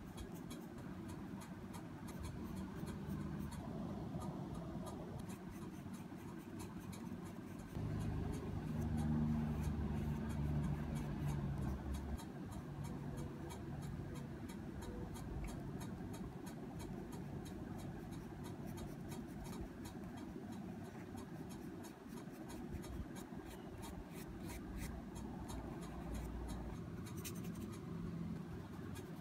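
Paintbrush strokes rubbing and scratching on watercolour paper, with faint clicks. A low hum swells for a few seconds about a third of the way in.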